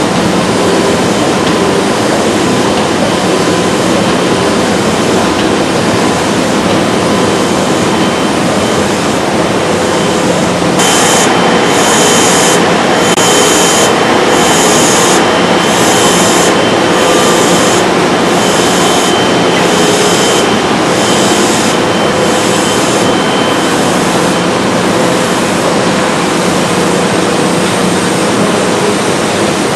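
Printing press running: a loud, steady mechanical din. For about thirteen seconds in the middle it is joined by a regular hissing puff about once a second and a faint high whistle.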